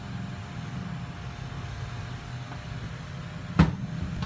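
A steady low background hum, then a single sharp knock about three and a half seconds in as an old corded drill is set down on the wooden workbench.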